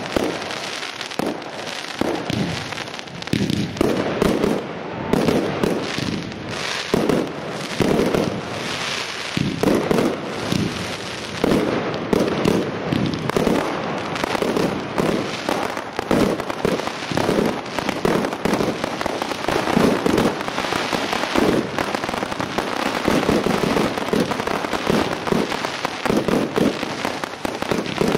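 Professional firework display: a continuous barrage of fireworks launching and bursting, with sharp bangs several times a second over constant crackling.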